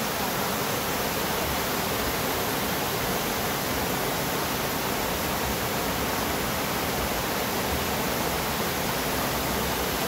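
Waterfall tumbling over rock ledges: a steady, unbroken rush of falling water.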